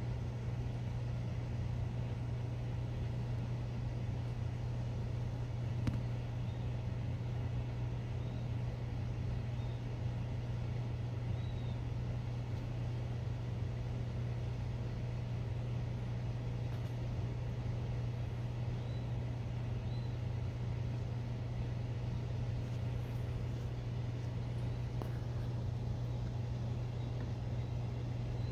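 Steady low hum of background noise, with a few faint, short, high peeps from a day-old button quail chick.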